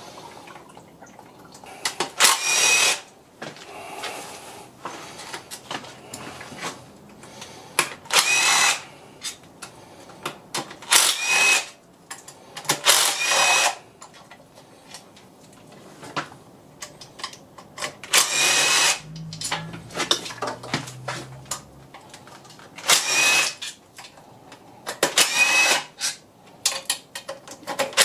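A cordless power driver on a long socket extension spins out bolts on a Ford 1.0 EcoBoost engine block in about seven short whirring bursts, each under a second. Quieter clicks of tools and parts being handled fall between the bursts.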